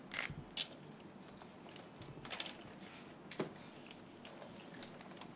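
Faint scattered clicks and light rustles of papers and pens being handled at a table during document signing, the sharpest click about three and a half seconds in.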